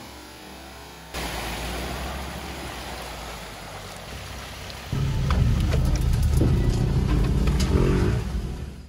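Ford Ranger ute driving through muddy water: tyres splashing and churning through the mud with the engine running. About five seconds in, the sound steps up to a louder, low engine rumble with scattered ticks, heard from inside the cab.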